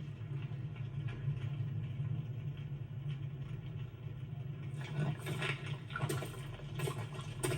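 A steady low rumble with scattered faint crackles and clicks, which grow busier about five seconds in.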